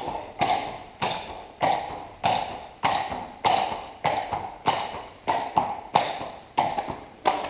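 Horse's hooves striking a concrete barn-aisle floor at a walk, a steady rhythm of sharp clops, about two a second, echoing in the aisle.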